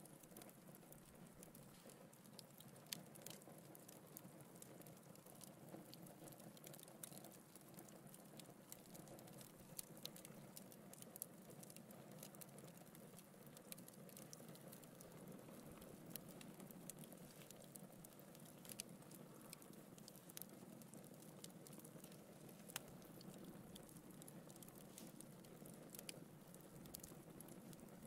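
Wood logs burning in a fireplace, crackling faintly: irregular sharp pops and snaps over a soft, steady rush of flame.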